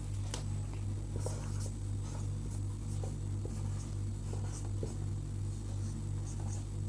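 Marker pen scratching in short strokes on a whiteboard as a line of handwriting is written. A steady low hum runs underneath.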